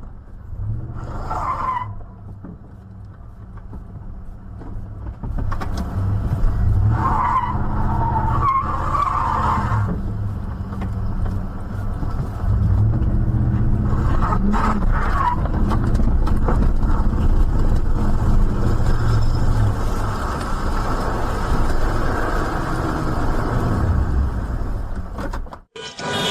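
A car driving, its engine and tyre noise a steady low rumble.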